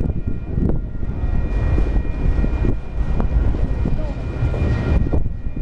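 Autorack freight cars rolling past at close range: a steady low rumble of wheels on rail, with scattered sharp clicks as the wheels pass over the track.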